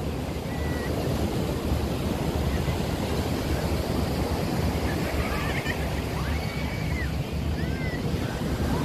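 Steady beach ambience: surf washing and wind buffeting the microphone, with a few faint high calls in the background in the second half.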